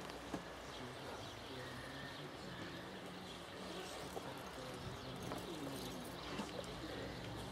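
Birds calling over a low, steady hum.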